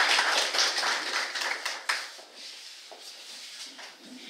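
Audience applauding, a dense patter of many hands that fades out about two seconds in, leaving quieter room noise that cuts off suddenly near the end.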